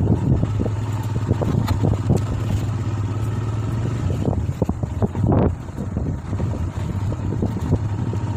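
A motor vehicle's engine running steadily, with frequent short knocks and rattles over it.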